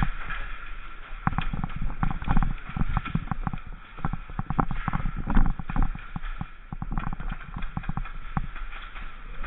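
A string of sharp knocks and clicks at uneven spacing, over a low steady hum.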